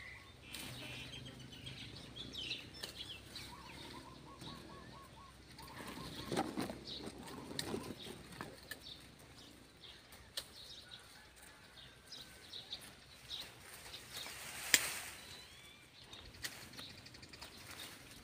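Wild birds calling and chirping, including a short run of quickly repeated notes about four seconds in, with a few sharp clicks, the sharpest a little before the end.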